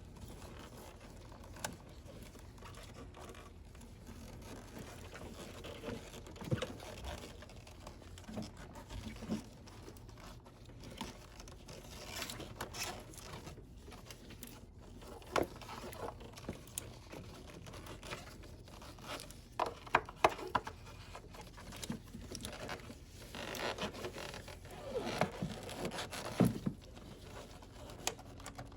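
Plastic engine sound-shield covers being handled and worked into place in a cramped engine bay. Scattered scrapes, rustles and sharp clicks come at irregular intervals, with a cluster of louder clicks around the middle and more near the end.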